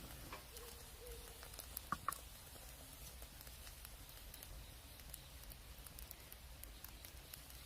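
Campfire crackling faintly, with scattered small ticks and a couple of sharper pops about two seconds in.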